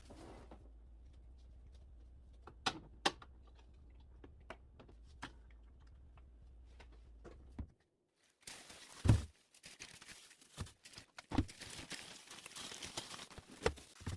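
A steady low hum with two sharp clicks. After a cut, plastic crinkles and rustles with irregular knocks and clatter, the loudest knock about nine seconds in, as items are handled.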